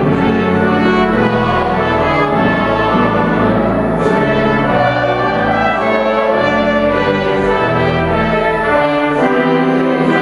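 Trumpets and trombones with pipe organ playing a hymn in full, sustained chords.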